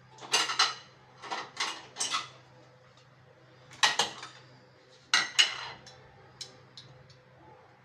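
Dishes and cutlery clinking and knocking as serving plates are set out, in several short clusters of clinks, with a few light ticks near the end.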